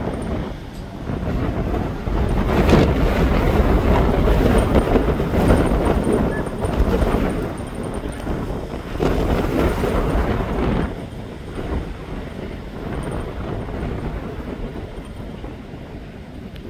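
BNSF freight train rolling past with a steady rumble and rush of wheels on rail, and wind buffeting the microphone; the noise drops off about eleven seconds in.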